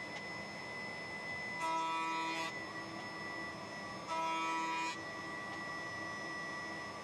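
Table saw and dust extractor running steadily with a constant high whine. Twice the sound grows louder for under a second, the second time as a plywood blade piece is fed through.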